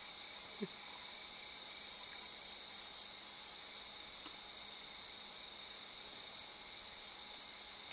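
Night chorus of crickets and other insects trilling steadily, a high fast-pulsing buzz over a couple of lower steady tones. A brief low sound comes about half a second in.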